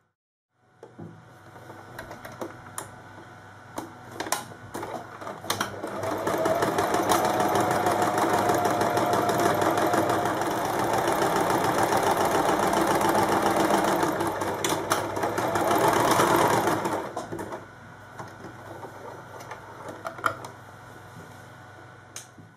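Electric sewing machine stitching a straight seam through cotton fabric, running steadily for about ten seconds in the middle. Before it starts and after it stops there are scattered clicks and knocks.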